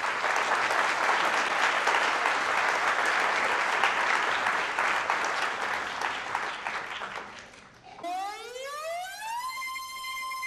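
Audience applauding for about seven seconds, then dying away. After an abrupt switch, an electronic tone with many overtones slides up over about a second and a half and holds steady.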